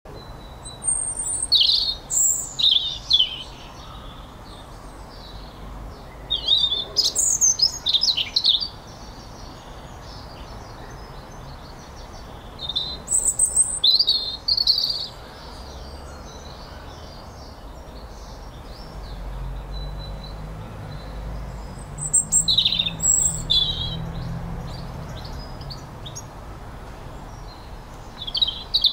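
Birds chirping in short bouts of quick, high-pitched calls, several seconds apart. A faint low hum sits under them in the middle stretch.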